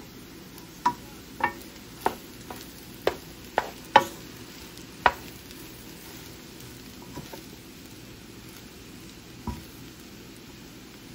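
Fried rice sizzling in a pan while a wooden spoon stirs it, the spoon knocking against the pan about eight times in the first five seconds and twice more later.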